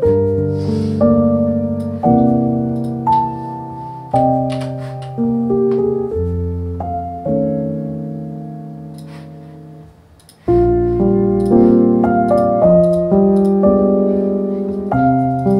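Background music: a gentle piano playing chords and single notes, each note fading after it is struck. It pauses briefly about ten seconds in, then picks up again.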